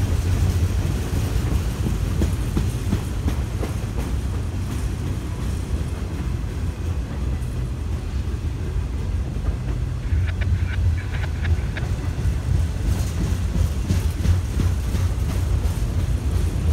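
Norfolk Southern autorack freight cars rolling slowly past: a steady low rumble of steel wheels on rail, with a run of clicks and clatter from the wheels about ten seconds in.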